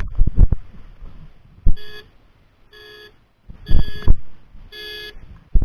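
Electronic beeper sounding short, evenly repeated beeps about once a second, with several heavy low thumps in between.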